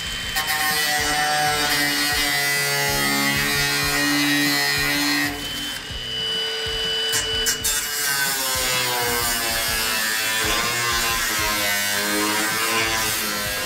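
Cordless angle grinder whining as it grinds and cuts rusted steel body panels on an old car, its pitch sagging and recovering under load partway through. Background music with held notes plays over it.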